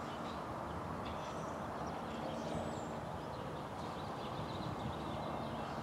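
Steady low rumble of a train approaching an activated grade crossing, with birds chirping faintly.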